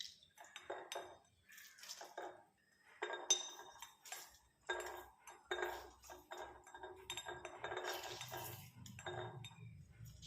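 Kitchen utensils and dishes clinking and knocking together in a string of short strikes, some ringing briefly.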